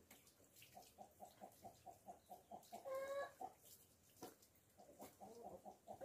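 Chickens clucking faintly: a quick run of short clucks, one longer drawn-out call about three seconds in, then a few more clucks near the end.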